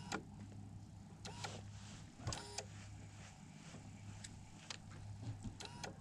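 Faint steady low hum of an electric trolling motor, with several short clicks and brief buzzy chirps.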